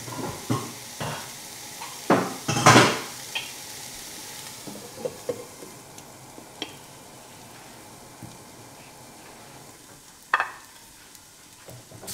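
Metal pots, pans and utensils clanking and clattering over the faint steady sizzle of peppers sautéing in a pan. The loudest clatter comes two to three seconds in, and there is one more sharp clank near the end.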